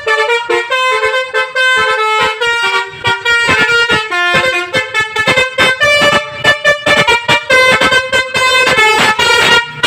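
A bus's Basuri V3 telolet horn playing a fast melody, its notes changing pitch several times a second, loud and without a break.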